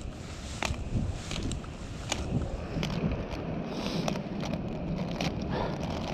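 Rollerblade inline skates with twin cam rustproof bearings rolling on street pavement: a steady rumble of the wheels, with scattered sharp clicks and scrapes as the skates strike and push off.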